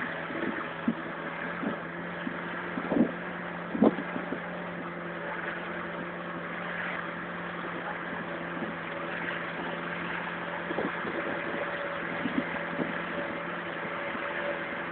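Steady engine and road hum heard from inside a moving vehicle, with a few short knocks about three and four seconds in and fainter ones later.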